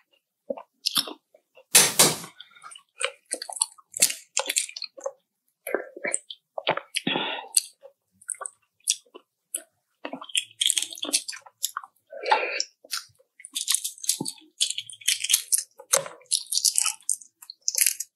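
Close-miked sounds of a person chewing and biting food: irregular chewing noises with short crisp crunches, coming in denser crackly runs about ten seconds in and again about fifteen to seventeen seconds in.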